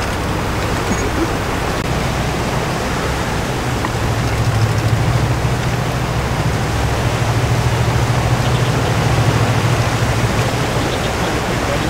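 Low hum of a large cruise ship passing across the water, over a steady hiss; the hum swells from about four seconds in and eases again near the end.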